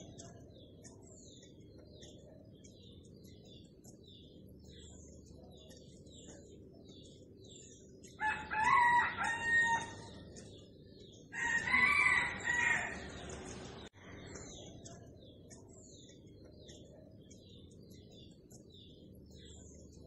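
A rooster crowing twice, about eight and eleven seconds in, each crow lasting under two seconds. Small birds chirp rapidly and steadily throughout.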